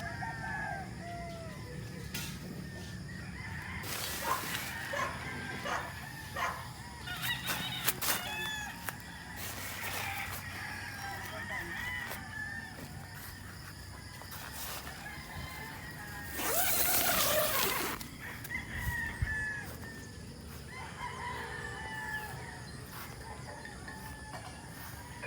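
Chickens clucking and roosters crowing, with one long, loud crow about two-thirds of the way through and a few scattered knocks.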